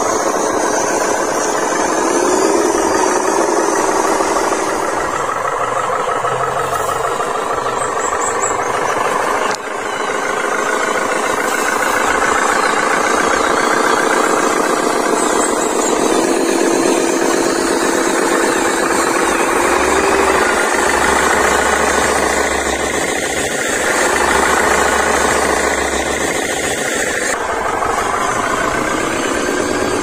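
Radio-controlled model trucks crawling through mud, their motors and gearboxes giving a steady whine that shifts a little in pitch. The sound changes abruptly about ten seconds in and again near the end.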